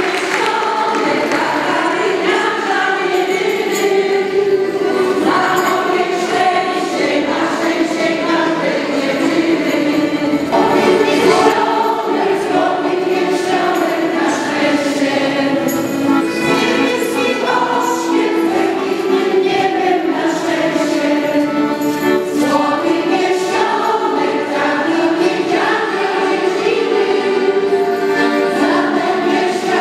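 Women's folk choir singing a song together in chorus, with long held notes.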